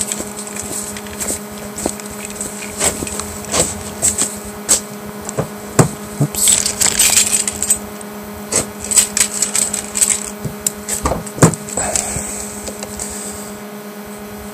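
Footsteps and handling knocks on a small camera's microphone, irregular clicks every half second or so, with a brief rustle about halfway through, over a steady electrical hum from the recording device.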